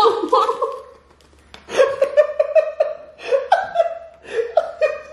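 A woman laughing in short, high-pitched bursts, breaking off briefly about a second in and then going on in quick repeated peals.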